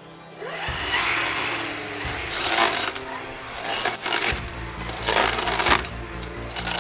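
Wood being sawn, in uneven noisy bursts, with a low steady hum joining in a little past the middle.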